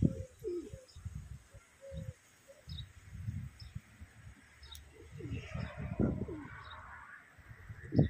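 Domestic pigeons cooing close by, low throaty coos coming in irregular bursts, with faint short high chirps of small birds between them.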